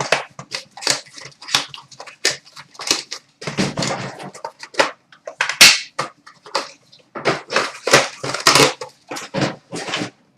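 Packaging of hockey card boxes and packs being torn open and handled: a fast, irregular run of crinkling, tearing and rustling of foil wrappers, plastic and cardboard.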